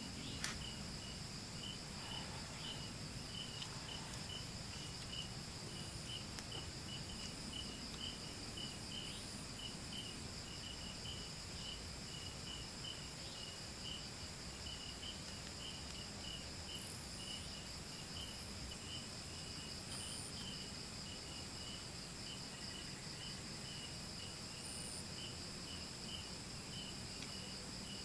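Crickets and other night insects chirping: a steady high trill with a slower pulsed chirp about two or three times a second over it. A single sharp click about half a second in.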